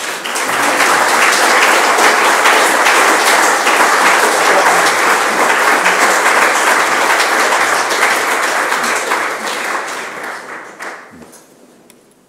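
Audience applauding: steady clapping from many hands that starts at once and dies away over the last few seconds.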